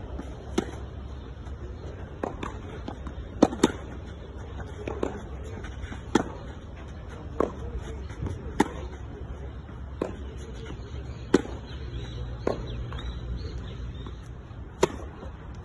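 Tennis ball being hit by racquets in a rally on a clay court: a sharp pop about every second and a quarter, some in quick pairs, over a steady low rumble.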